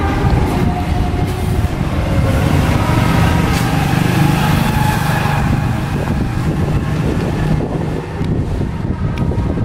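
A small motor scooter's engine running as it rides past close by, loudest about four to five seconds in, over a steady low rumble.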